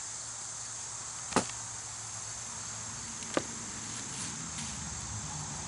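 Steady high-pitched chirring of crickets, with two sharp knocks about two seconds apart.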